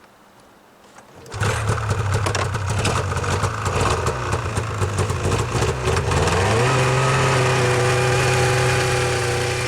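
A small engine starts abruptly just over a second in and runs unevenly. From about six and a half seconds it settles into a steadier, slightly higher running speed.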